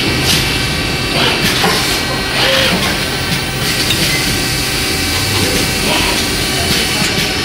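In-mould-labelling robot and injection-moulding machine running: a steady mechanical hum with short air hisses from the robot's pneumatic grippers, repeating every second or so as the arm shuttles in and out of the mould.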